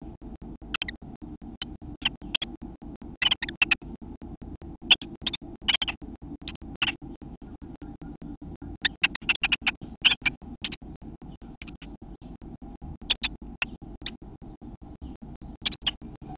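A European robin shifting on the dry grass and moss of its nest gives irregular sharp clicks and scratches, some single and some in quick clusters. Under them runs a steady, fast-pulsing hum.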